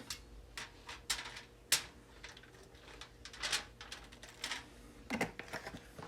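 Irregular light clicks and crinkles from hands handling kitchen things such as foil and a bottle, with one sharper click about two seconds in.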